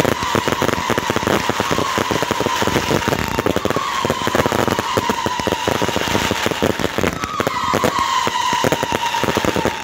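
Fireworks cakes firing: dense, rapid crackling and popping, with short whistles that dip slightly in pitch over and over.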